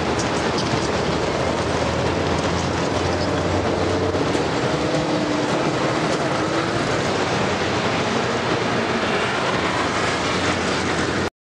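Rail vehicle running on track: a steady rumble with faint clickety-clack and a thin wheel squeal sliding in pitch around the middle. It cuts off suddenly at the end.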